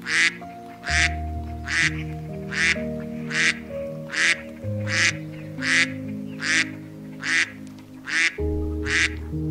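A bird giving the same short call over and over, about one call every 0.8 seconds, a dozen in all, with slow, soft background music playing beneath.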